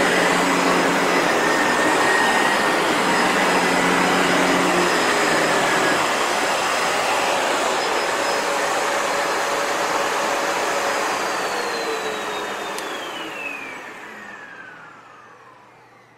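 Sebo Felix vacuum cleaner running steadily, its sound changing slightly about six seconds in. About eleven seconds in the motor is switched off, and its whine falls in pitch and fades as it winds down.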